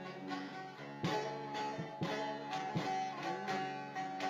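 Instrumental music: a plucked string instrument playing repeated picked notes, a couple of times a second, between sung lines of a song.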